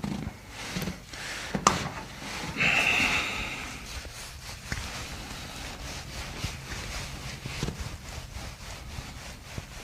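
Hands rubbing and pressing against skin and clothing during a massage, a low scuffing friction, with one sharp click about a second and a half in and a short hiss about three seconds in.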